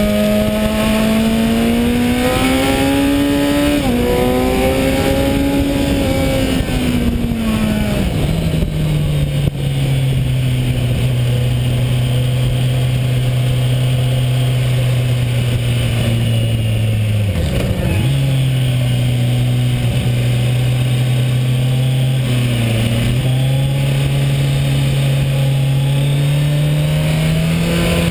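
Kawasaki Ninja 1000's inline-four engine, recorded on board with wind noise over the microphone. The revs climb over the first few seconds with a brief dip, then roll off and fall to a steady lower drone that holds for a long stretch. There is a sharp momentary dip just past the midpoint, and the revs build slightly again near the end.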